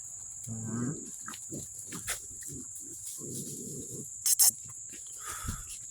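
American bully puppies grunting and growling as they tussle, with scuffling knocks, a rough growl about three seconds in and two loud sharp clicks just after four seconds. A steady high whine runs underneath.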